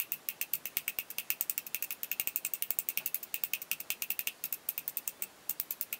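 Toothpick piercing aluminium foil stretched over a hookah bowl: a quick, even run of small crisp pops, one for each hole, with a brief pause near the end.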